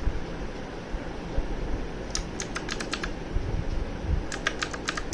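Typing on a mechanical keyboard with clicky blue switches: a quick run of keystrokes about two seconds in, then another fast burst near the end.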